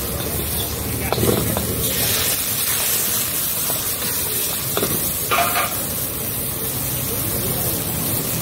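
Paneer and vegetables sizzling in a hot wok over a gas burner, with a metal ladle scraping and knocking against the pan during stir-frying. A few louder ladle strokes stand out about a second in and again about five seconds in.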